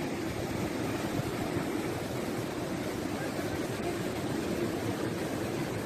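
Fast mountain river, the Kunhar, rushing steadily over boulders in white-water rapids, running high.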